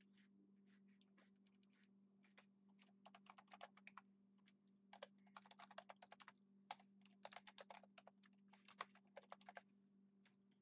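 Faint typing on a computer keyboard, several quick runs of keystrokes, over a steady low hum.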